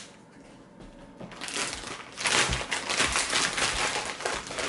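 Vacuum-seal plastic bag crinkling and crackling as it is pulled open and peeled away from the package inside. It starts about a second and a half in and is loud and continuous from about two seconds in.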